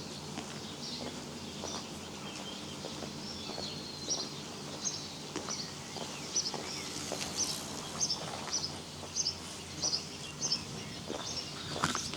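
A small songbird chirping a series of short high notes, about two a second, over steady background noise.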